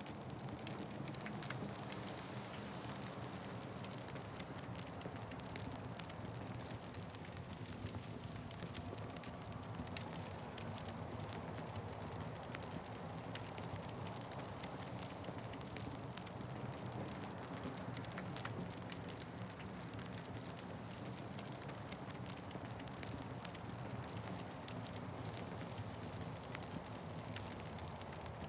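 Wood fire crackling steadily, with frequent small pops over a low, even rush of the flames.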